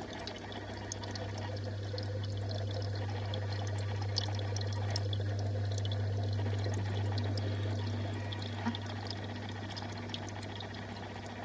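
Aquarium water running and trickling into a holding tank, with a steady low hum from the pump and many small bubbly pops.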